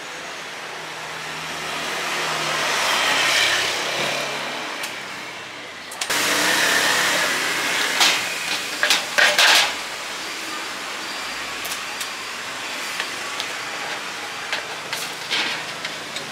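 Street traffic: a passing vehicle swells and fades over the first few seconds, and after that there is a steady traffic hum. In the middle, plastic utensils are set down with a few sharp clatters on metal trays.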